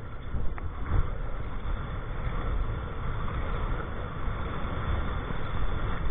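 Wind rumbling on the microphone over a steady rush of water along the hull of a Grumman 17 aluminium canoe under sail, with two light knocks about half a second and a second in.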